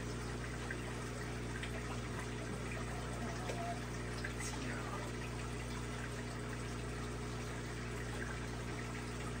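Aquarium filtration running: a steady trickle and rush of water with a low, even pump hum.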